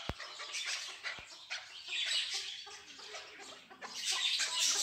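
Chukar partridges calling, a steady run of short repeated notes.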